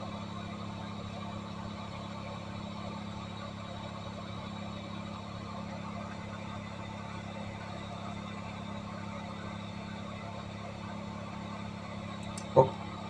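Hot air rework station blowing steadily onto a phone's eMMC chip to melt its solder: an even rush of air with a low hum. A single short click near the end.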